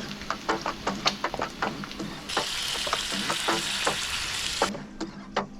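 Food frying in a pan, with many sharp clicks and taps of a utensil. A louder, steady sizzle starts a little past two seconds in, lasts about two seconds, and stops abruptly.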